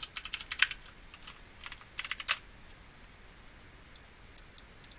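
Typing on a computer keyboard: two short bursts of keystrokes in the first two and a half seconds, then only a few faint clicks.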